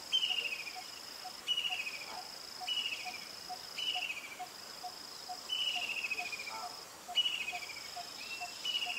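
Insects calling: a steady high-pitched whine that breaks off now and then, a buzzy falling phrase repeated every second or so, and a soft ticking about three times a second.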